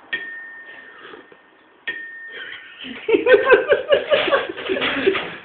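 A spoon strikes a cup twice, about two seconds apart, each strike ringing with a clear high tone that fades away. From about three seconds in, a loud human voice with a changing pitch takes over.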